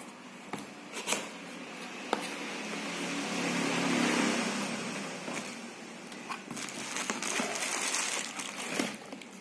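Cardboard lens box being opened by hand: a few taps and clicks, a long sliding rustle of the cardboard swelling and fading, then bubble wrap crinkling as the wrapped lens is pulled out near the end.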